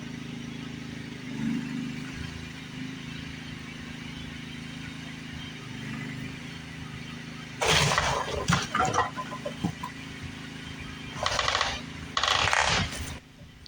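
An engine runs steadily while a strap pulls on a rotten wooden shed wall; a little past halfway the wall gives way with a loud splintering crash of cracking wood, and two more loud crashes follow near the end.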